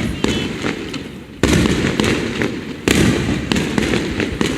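Aerial firework shells bursting: two heavy booms about a second and a half apart, each trailing off in a rumble, with crackling throughout.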